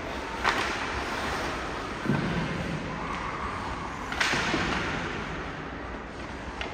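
Two sharp, short cracks about four seconds apart over a steady outdoor background hiss.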